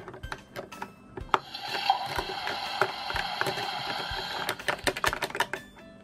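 Small plastic toy pieces clicking and tapping against the plastic sink of a Minnie Mouse Bowtastic Kitchen playset. From about a second and a half in, a steady hissing electronic sound effect from the toy kitchen's speaker plays for about three seconds, then stops.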